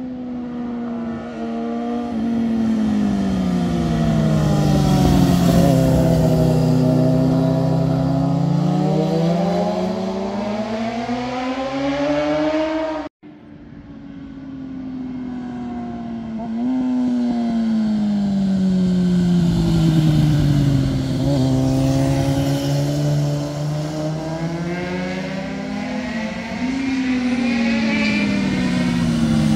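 Motorcycle engines running as the bikes ride up a winding road, their pitch dropping and then climbing again several times as they slow and speed up. The sound cuts out for an instant a little before halfway, then more motorcycles come in.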